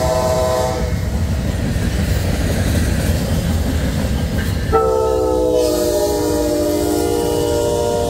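Amtrak locomotive's multi-chime air horn: one blast cuts off within the first second, and a second long blast starts a little past halfway. The train's low running rumble continues underneath.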